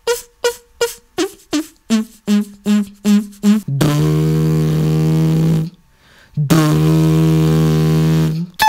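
Vocal beatbox effects: a quick string of short pitched pops, about three a second, then two long, steady, buzzing bass tones of about two seconds each with a short break between them.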